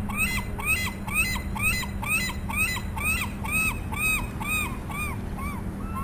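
A fast, evenly repeated chirping sound, about two and a half short rising-and-falling chirps a second, over a steady low hum. Near the end the chirps slow and each is held a little longer.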